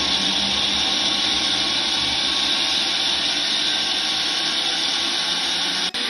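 Countertop blender running steadily at full speed, blending pineapple chunks with ice and water into juice, with a brief break near the end.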